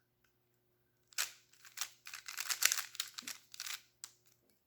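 Plastic 3x3 puzzle cube being turned by hand: a quick run of clicking and clacking layer turns, starting about a second in.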